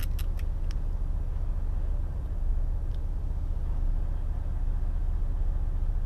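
A neighbouring semi truck's engine idling: a steady low rumble heard from inside the cab. A few light clicks in the first second as the headset is handled.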